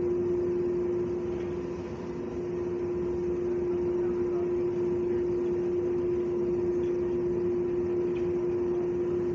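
Steady machine hum with a constant low drone and a faint higher whine over a noisy rush, unchanging throughout.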